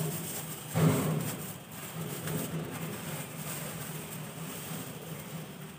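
Thin plastic carrier bag rustling and crinkling as it is shaken open and handled, with a louder crinkle about a second in, over a steady low hum.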